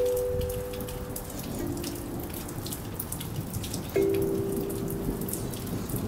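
Kalimba notes plucked slowly and left to ring and fade, with a new note about one and a half seconds in and a louder one about four seconds in, over steady rain pattering and dripping.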